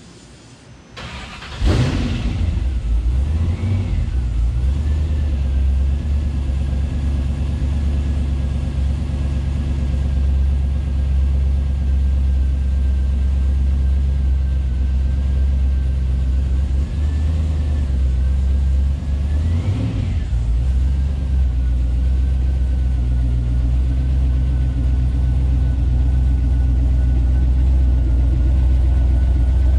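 Chevrolet Silverado truck engine cranking briefly and catching about two seconds in, its revs flaring and settling, then idling with a low rumble. There is one quick blip of the throttle around twenty seconds in, and the engine grows a little louder near the end as the truck rolls out toward the camera.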